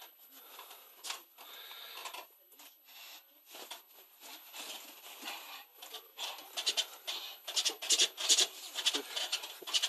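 A dog tugging and chewing on a braided rope toy tied to a bedpost: irregular rubbing, scraping and mouthing noises, getting louder and busier in the last few seconds.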